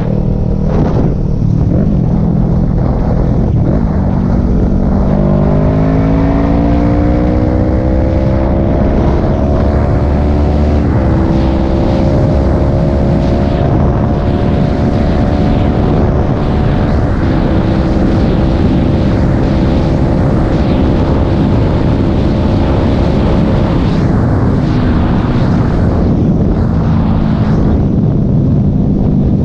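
Kawasaki ER-6n's 649 cc parallel-twin engine in a full-throttle roll-on from 60 to 110: its pitch climbs steadily for about twelve seconds, holds at speed, then drops as the throttle eases near the end. Constant wind and road rush runs under it.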